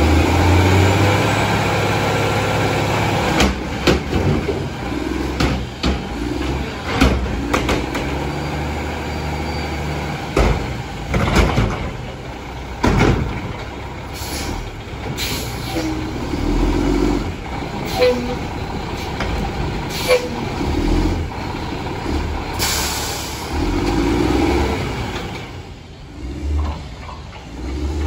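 Mack MR front-loader garbage truck's diesel engine revving hard and dropping back, the way a front loader revs to drive its hydraulics for lifting and packing. Repeated sharp bangs run through it, and there is a burst of air-brake hiss about four-fifths of the way through.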